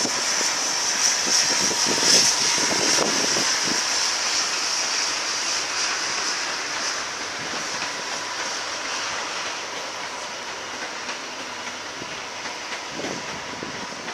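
Pesa Dart electric multiple unit running through the station at a distance: a steady rushing noise, loudest about two seconds in, then slowly fading as the train draws away, with a few dull knocks.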